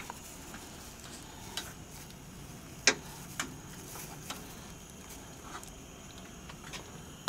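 Cutlery clicking against food containers during a meal: a few sharp, isolated clicks, the loudest about three seconds in, over a faint steady low hum.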